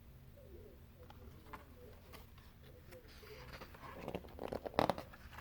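A picture-book page being turned: paper rustling that builds about three seconds in and is loudest briefly near the end, over a faint steady hum.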